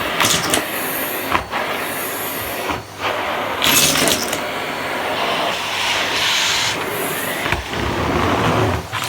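Vacuum cleaner running, its steady noise broken by a few brief dips and surges of louder hiss.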